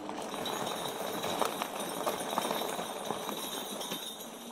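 Mooncool TK1 electric trike on 3-inch tires rolling over a rough trail: steady tyre noise with irregular rattles and knocks from the wheels and frame.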